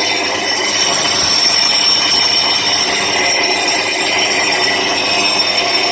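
Electric school bell ringing continuously and loudly, switched on by an automatic timer controller at its programmed bell time.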